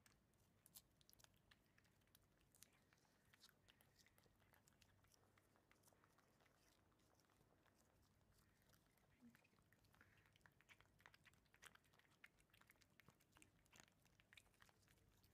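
Very faint, irregular wet clicking of two Abyssinian cats licking a lickable paste treat from a squeezed tube.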